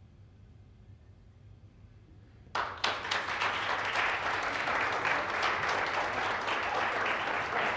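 Near quiet room tone, then about two and a half seconds in an audience bursts into applause, which carries on steadily.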